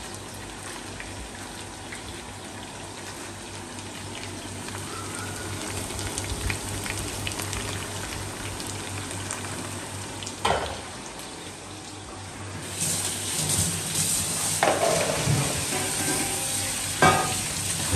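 Faint steady sizzling from a pan with a low hum, then about two-thirds of the way through a kitchen tap starts running, louder, with a few knocks of utensils.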